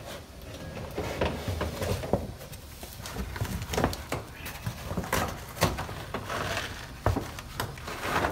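The Honda Civic's old felt-backed floor carpet being peeled up and dragged out of the car: irregular rustling and scraping, with several sharp knocks as it catches on the floor pan.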